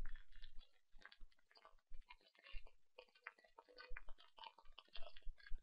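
Faint, irregular clicking of a computer mouse as keys are clicked on an on-screen calculator, with a few soft low thumps.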